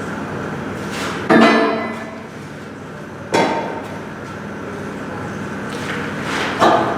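Three hard hammer blows on steel, each ringing briefly, spaced a couple of seconds apart, over a steady machine drone.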